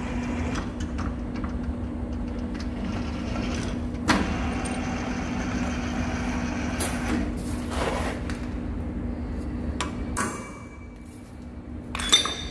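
Centre lathe running with a steady hum, with several sharp metallic clicks and knocks from the tool and carriage. The hum stops about ten seconds in.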